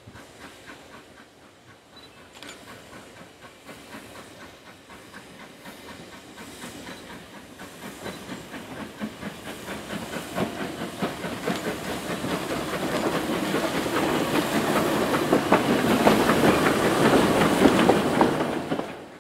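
Beyer, Peacock 2-4-0 tank locomotive Isle of Man Railway No. 4 'Loch' working a short train past at low speed: regular exhaust beats over a hiss of steam from the cylinders, with the wheels clicking on the rails. The sound grows steadily louder as it approaches, then cuts off suddenly near the end.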